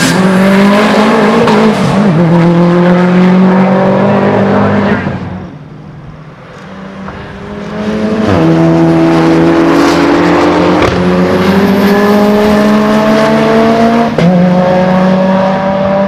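Race car engines at full throttle on track. A modified Subaru Impreza rally car passes at high revs with one gear change about two seconds in, then fades. After a short lull a second car accelerates hard, its pitch rising through the gears with two upshifts.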